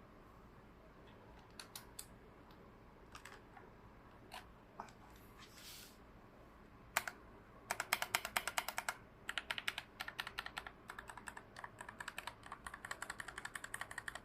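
Typing on a Keychron K1 Pro mechanical keyboard: a few scattered key clicks at first, then about halfway in fast runs of key strokes, some ten a second, with short pauses between bursts.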